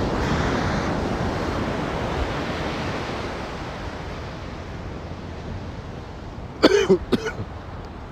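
Ocean surf washing onto the beach, with wind buffeting the microphone, a steady rush that slowly gets a little quieter. Near the end a man coughs twice, close to the microphone.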